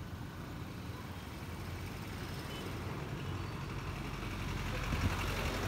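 Street traffic: a motor vehicle's engine running, getting louder toward the end as it comes closer, with one short knock about five seconds in.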